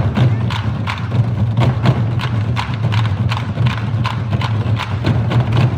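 Nanta drumming: drums and sticks struck in a fast, driving rhythm of sharp, clicking strikes over a heavy, steady low beat.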